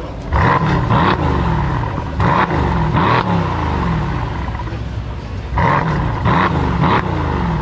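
Brabus 650's 4.0 biturbo V8 idling and blipped repeatedly, each short rev rising and falling back to idle: two revs early, two more a couple of seconds later, and three near the end.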